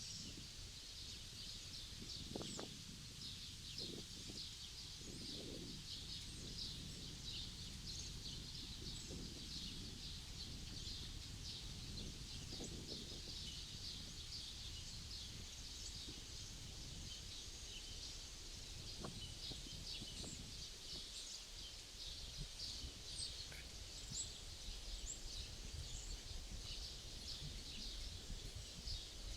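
Small birds chirping and singing continuously in many quick, overlapping notes, over a low rumble of wind.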